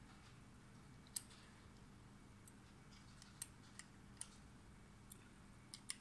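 Near silence broken by about eight faint, sharp little clicks, the sharpest about a second in, as a screw is turned by hand into a joystick's metal mounting bracket.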